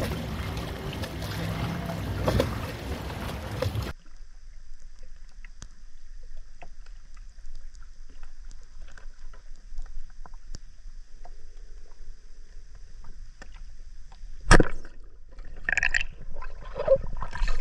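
Water lapping at the shore beside a small moored boat for the first four seconds. The sound then drops suddenly to a muffled underwater bed with faint scattered ticks, a sharp loud knock about fourteen seconds in, and a burst of short gurgling sounds near the end.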